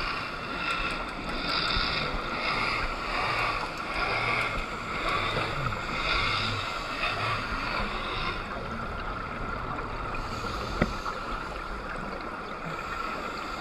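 Underwater noise of scuba bubbles: a diver's exhaled breath gurgles up in repeated bursts for the first eight seconds or so, then settles into a steady hiss, with one small click about eleven seconds in.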